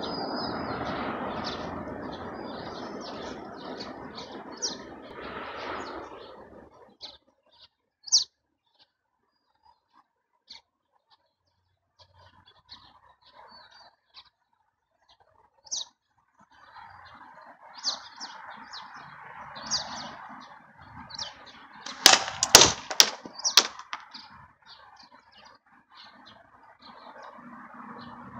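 Small birds chirping on and off in short, high calls, over a soft outdoor hiss that is stronger in the first few seconds. Around two-thirds of the way through comes a quick cluster of sharp, loud taps.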